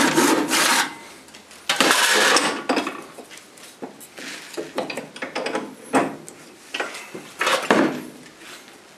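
Rip saw cutting a block of Banksia wood held in a vise: rasping strokes for about the first second and again around two seconds in. Quieter knocks and handling sounds follow as the block is shifted in the vise, with another brief spell of sawing near the end.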